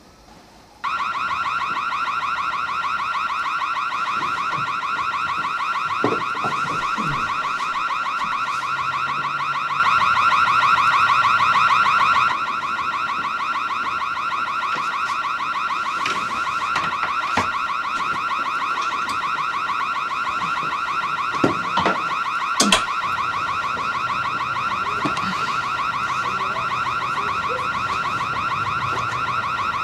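Car alarm going off: a continuous, fast-warbling high electronic tone that starts abruptly about a second in, louder for a couple of seconds around the middle, with a few faint knocks over it.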